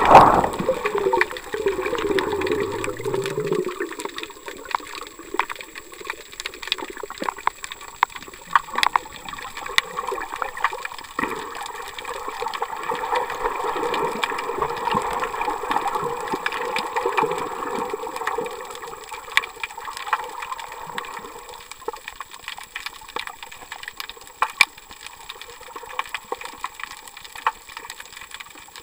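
Underwater water noise picked up by a submerged camera: a loud rush of water at the very start as the camera swings, then a steady wash of gurgling water with scattered clicks and crackles.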